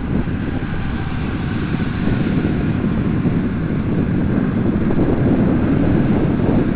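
Steady low rushing and buffeting of wind on an outdoor microphone.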